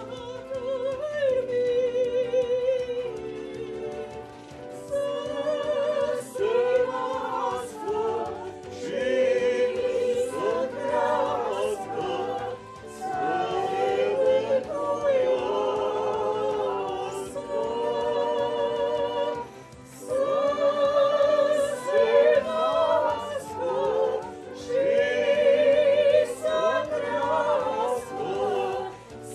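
A small group of older women singing together from song sheets, with strong vibrato, phrase by phrase with short breaks between phrases.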